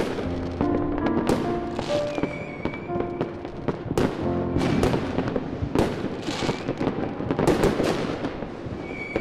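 Fireworks going off with repeated sharp bangs and crackling, mixed with music playing held notes.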